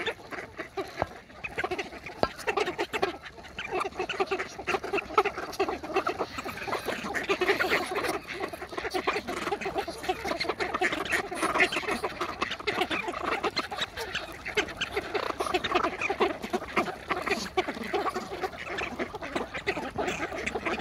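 A mixed flock of ducks (pintails, wigeon, mallards, Muscovy ducks, rosy-billed pochards) feeding on scattered grain right at the microphone: a busy, continuous clatter of bills pecking and dabbling at the grain and ground, with quacks and calls among it.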